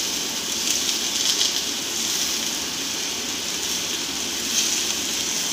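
Hot oil sizzling steadily in a frying pan as finely chopped onions are dropped into it by hand.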